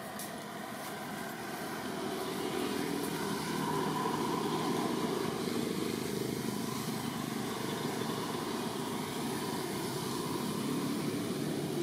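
Steady engine drone of a motor vehicle, growing louder over the first few seconds and then holding.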